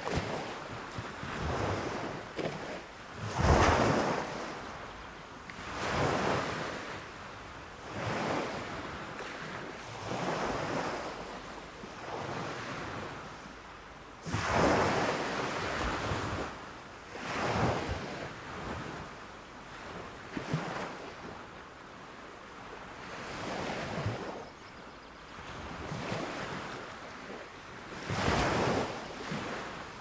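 Small waves breaking and washing up a sandy beach, the surf rising and falling every few seconds, with the loudest surge about three and a half seconds in.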